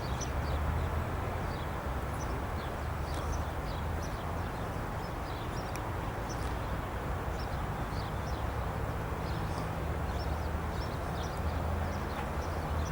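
Small birds chirping, with many short high chirps, over a steady low rumble.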